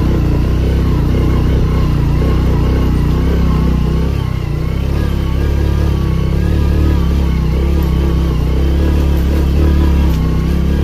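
Motorbike engine running under way over a rough dirt track, with a heavy low rumble and a thin wavering whine that rises and falls with the throttle.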